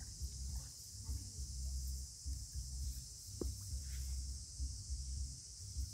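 Outdoor ambience: a steady high insect hiss over a gusting low rumble of wind on the microphone, with one brief chirp about three and a half seconds in.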